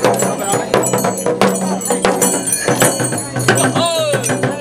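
A jhakri shaman's dhyangro frame drum is beaten with a curved stick in quick strokes, and the brass bells strapped to his body jingle with his movement. Near the end a voice gives a short cry that falls in pitch.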